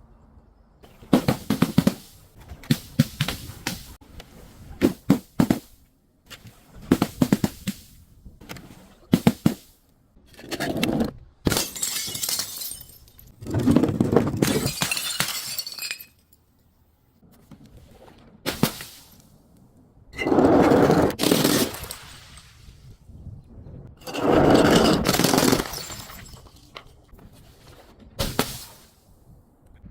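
Objects being crushed and broken, cracking and crunching in repeated bursts: clusters of short sharp crackles first, then longer crunching stretches of a second or two with quiet gaps between.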